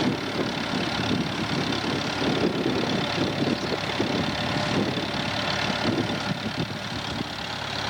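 Farm tractor engine running steadily while pulling a square hay baler that is taking in hay, packing it and cutting it into bales.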